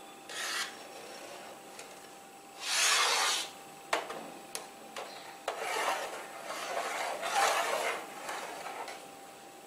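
Long steel ladle scraping and rubbing against the inside of a large aluminium pot while stirring milk that has just curdled into chhena. Several short scraping strokes, each under a second, with a few sharp metal clicks in between.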